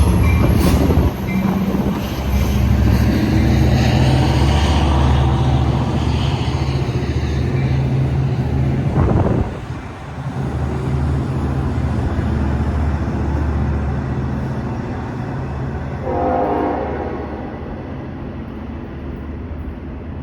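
Long Island Rail Road train running through the station, a heavy steady rumble that gradually fades over the last several seconds.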